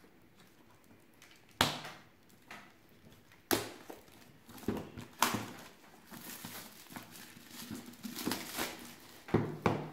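Plastic shrink wrap being torn and peeled off a cardboard board-game box: two sharp snaps in the first few seconds, then a stretch of crinkling.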